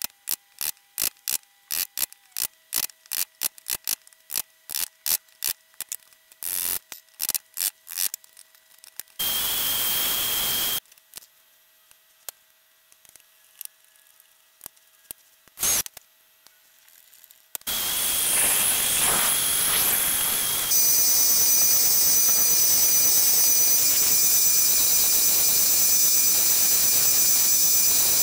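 Woodworking shop sounds: a run of sharp clicks and taps, a short burst of a power tool, then a power tool running steadily with a high whine.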